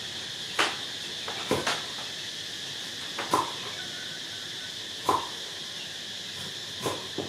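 Steady high insect drone, like crickets, with several short sharp clicks scattered through it.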